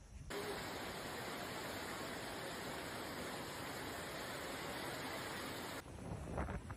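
Heavy rain pouring down as a dense, steady hiss that starts abruptly and cuts off about six seconds in. Gusty wind rumbling on the microphone takes over beside a fast-flowing flooded river.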